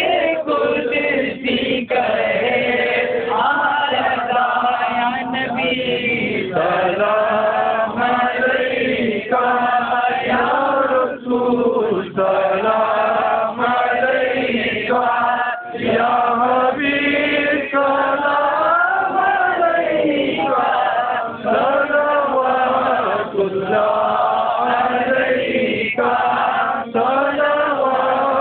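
Group of men chanting a devotional song of praise for the Prophet in unison, a continuous melodic recitation.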